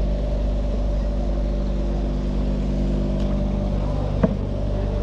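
Small wooden boat's engine running steadily at an even speed, with one sharp click about four seconds in.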